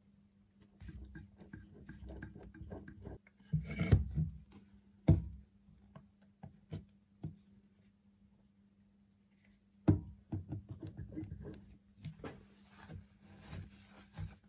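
Irregular light clicks, taps and a few sharper knocks of small metal parts being handled while a model steam engine is oiled before starting, over a faint steady low hum.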